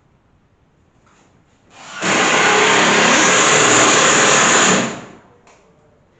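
Electric drill motor run at speed for about three seconds, spinning up, holding steady and winding down.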